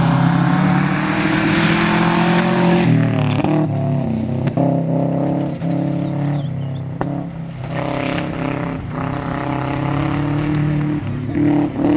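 Rally car engine running hard at high revs. About three seconds in the note drops sharply, then carries on with short breaks and sharp cracks every second or so.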